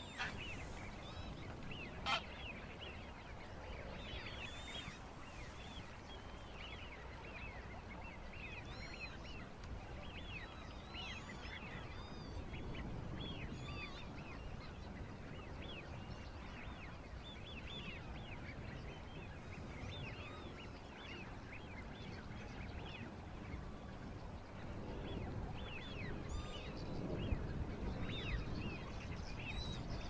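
A flock of birds calling continuously, with many short, overlapping calls; a single sharp click about two seconds in.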